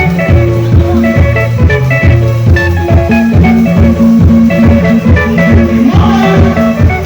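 A band playing instrumental music, with a prominent bass guitar line and quick repeated plucked electric guitar notes over a steady, even beat.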